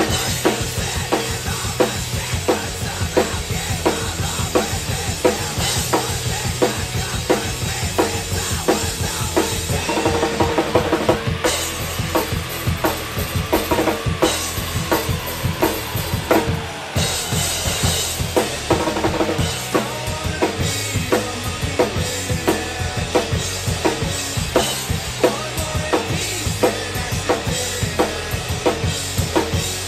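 Acoustic drum kit played hard and fast, with a driving kick drum, snare hits and crashing cymbals, over a loud rock backing track with sustained bass and guitar tones.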